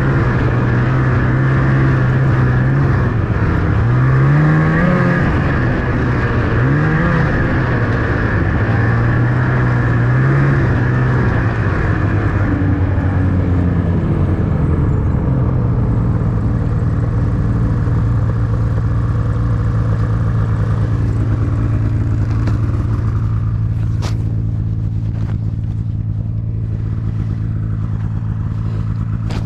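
Snowmobile engine running. Its revs rise and fall three times in the first half, then it holds a steady, slightly lower speed. A single sharp click comes near the end.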